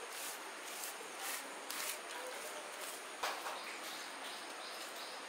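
Hand smearing thick ground rice-and-spice batter over a colocasia leaf: soft wet swishing strokes, about two a second, then a single knock about three seconds in.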